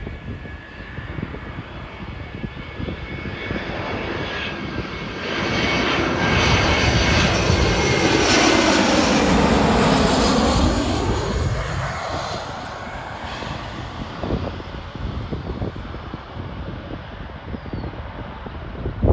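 Jet airliner passing close by, its engine noise swelling to a peak in the middle and then fading away, with a steady high whine on top. Wind buffets the microphone throughout.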